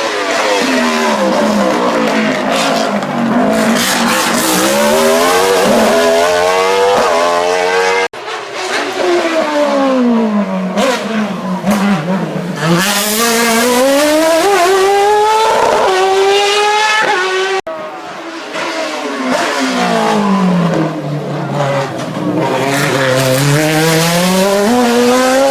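Racing car engines at high revs, the pitch dropping as the drivers brake and downshift, then climbing again as they accelerate away. This happens three times, with abrupt cuts between passes at about eight seconds and about seventeen seconds.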